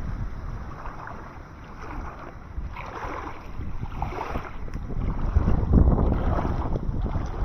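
Wind buffeting the microphone over water lapping and splashing close by, strongest a little over halfway through.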